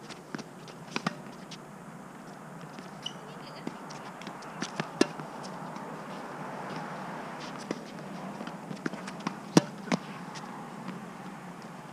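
Tennis rally on a hard court: scattered sharp pops of rackets striking the ball and the ball bouncing, the loudest a close forehand about two seconds before the end, over steady outdoor background noise.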